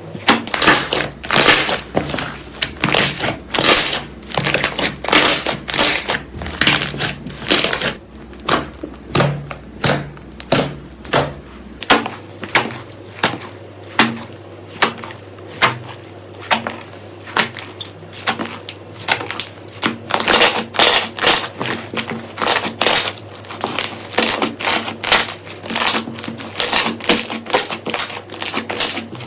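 Slime being squeezed and pressed, giving a rapid, irregular run of sharp crackling pops and clicks, a few each second.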